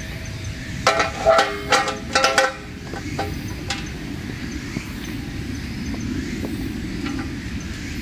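Steel fire-pit parts clanking together as the perforated honeycomb cage is set onto the hexagonal base. About a second in comes a cluster of ringing metal knocks lasting about a second and a half, then a steady low background rumble with a couple of faint ticks.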